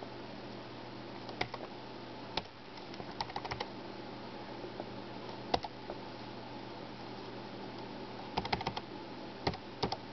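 Keys clicking on a Dell Latitude D410 laptop keyboard: single presses and short quick runs of a few, as the boot-sequence menu is stepped through. Single clicks come about a second and a half and two and a half seconds in, a quick run around three seconds, and more past eight seconds.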